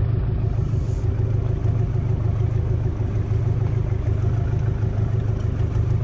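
A fishing boat's engine running steadily, a low, even rumble with a constant hum above it.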